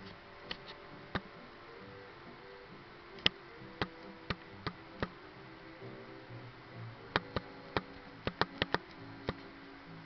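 African grey parrot's beak biting and crunching a piece of pizza crust: sharp, irregular clicks, with a quick cluster from about seven to nine seconds in. Faint music plays underneath.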